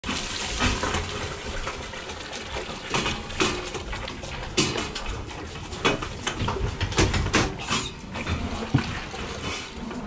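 Milk pouring from a calf milk cart's hose nozzle into stainless steel feeding bowls, a steady splashing fill, with irregular sharp knocks throughout.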